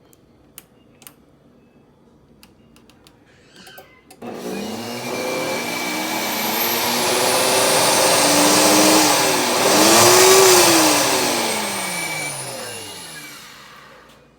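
Electric blender motor: after a few clicks it starts about four seconds in, spins up with a rising whine and surges, then winds down and stops near the end. This is a misfire, which the owner suspects comes from a faulty button.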